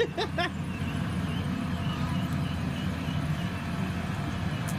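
Combine harvester engine running steadily, a low even drone.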